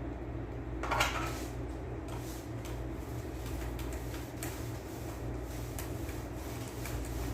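Small handling clicks and knocks with one short scrape about a second in, over a steady low hum.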